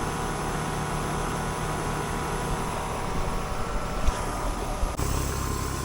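Several air-conditioning units running together in a steady mechanical hum with a fixed motor tone. There is a short knock about four seconds in, and about five seconds in the hum turns abruptly heavier and lower.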